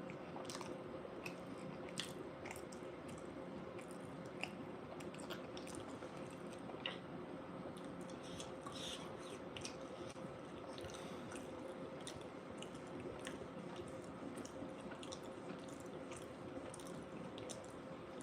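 Close-up chewing of a bean burrito: soft, wet, squishy mouth sounds with scattered small clicks and smacks. A faint steady hum runs underneath.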